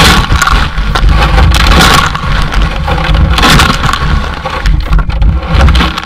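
Washing machine drum turning with soggy corn flakes and milk tumbling and sloshing inside, heard from within the drum: a heavy rumble under a whooshing wash that swells and falls about every two seconds as the load goes round.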